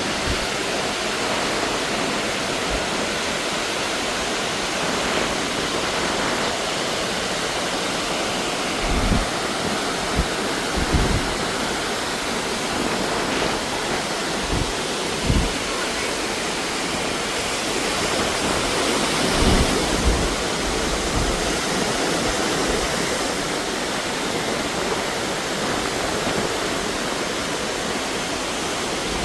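Waterfall in rainy-season flow: a steady, even rush of falling water, with a few short low thumps breaking in now and then.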